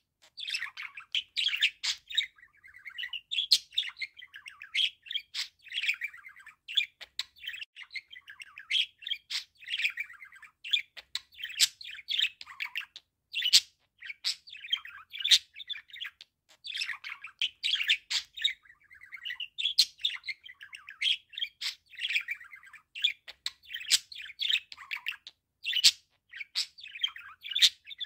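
Male budgerigar warbling: a continuous high-pitched run of chirps, chatter and sharp clicks, broken by a few short pauses.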